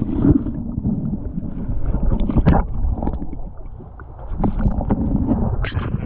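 Wind buffeting the microphone as a loud, uneven low rumble, with scattered short knocks and clicks from handling.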